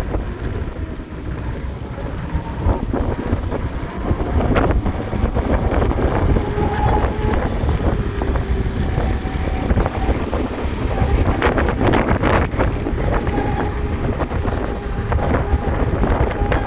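Ola S1 Pro electric scooter being ridden, with wind on the microphone and the noise from the rear that a service engineer could not fix: short recurring tones and several knocks over a steady rumble.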